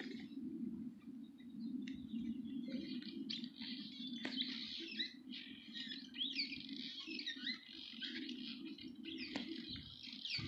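Birds chirping, a dense run of short, high, falling chirps from about two seconds in, over a steady low hum.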